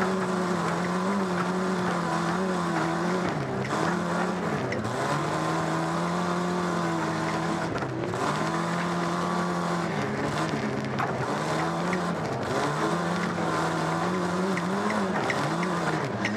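Stock car's engine heard from inside the cockpit, running hard under load. Its revs dip briefly and climb back several times.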